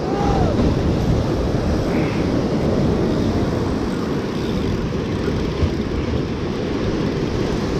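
Steady rush of surf breaking and washing over shoreline rocks, with wind buffeting the microphone.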